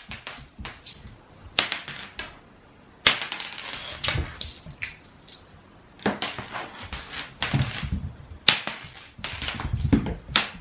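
A ginger tabby cat at play: irregular sharp taps and thumps with scuffling and rustling in between.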